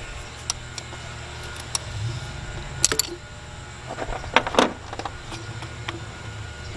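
Small metal clicks and clinks of an Allen wrench working the power steering pump's mounting bolts, sharpest about three and about four and a half seconds in, over a steady low hum.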